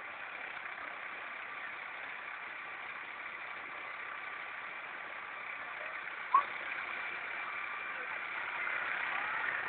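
Air ambulance helicopter's turbine engines running on the ground, a steady whine that slowly grows louder near the end. A single sharp knock about six seconds in.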